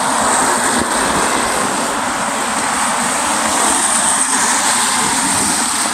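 Steady hiss of heavy rain falling on an umbrella and a wet street, even throughout with no distinct knocks or tones.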